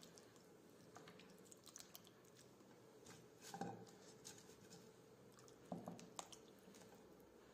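Near silence with a few faint, soft handling noises, about three and a half seconds in and again around six seconds, as raw rooster pieces and vegetables are pressed and arranged in a pot.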